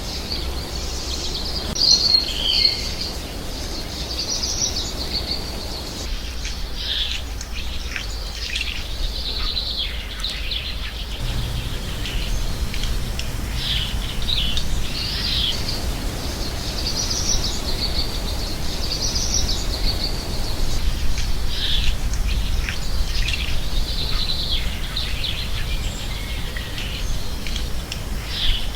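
American goldfinch singing: a long, continuous run of rapid twittering notes and warbles, over a steady low rumble of background noise.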